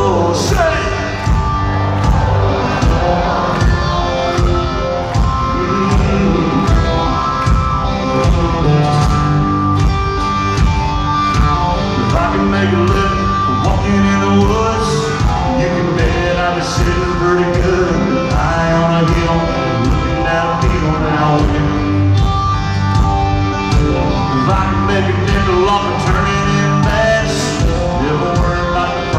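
Live band playing at an arena concert: a male singer with electric guitar over a steady drum beat, heard from the stands.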